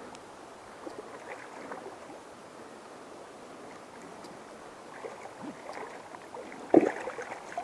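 River water running and splashing, a soft steady wash, with one short louder sound about seven seconds in.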